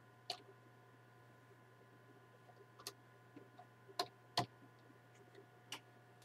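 Computer keyboard keys clicking one at a time, about five slow, unevenly spaced keystrokes of hunt-and-peck typing, over a faint steady electrical hum.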